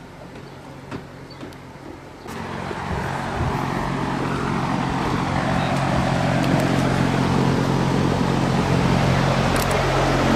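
A few faint knocks, then about two seconds in a loud steady mechanical hum with a low drone sets in abruptly and holds: a large electric drum fan running.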